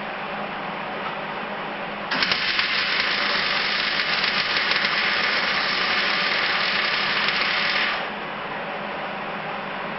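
MIG welder laying a weld bead on sheet steel: a steady crackling hiss that starts about two seconds in and stops abruptly about six seconds later, over a low background hum.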